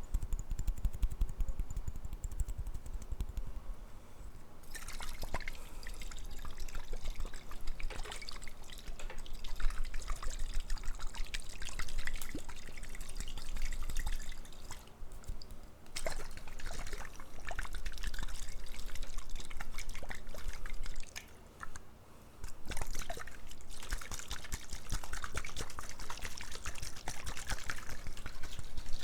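Water being poured and trickling, with crackly drips and splashes, starting about five seconds in and stopping briefly a little past twenty seconds before going on. Before the pouring starts there is only a low, dull handling sound.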